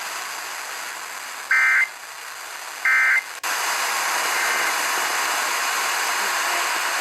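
Weather radio receiver static hissing, broken by two short EAS SAME digital data bursts about a second and a half apart, about a second and a half in and again about three seconds in. They are the end-of-message bursts that close a broadcast severe thunderstorm warning.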